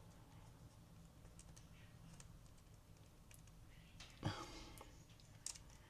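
Faint scattered clicks and taps of fingers handling a replacement speaker and its thin cable inside an open MacBook Pro, with one louder knock about four seconds in.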